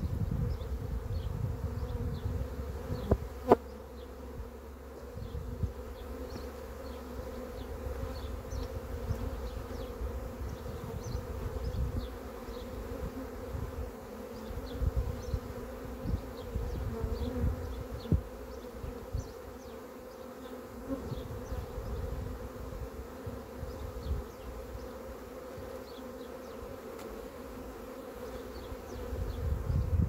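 A honeybee swarm buzzing, a steady hum as the bees crowd into a swarm box, with an irregular low rumble underneath. One sharp click comes about three and a half seconds in.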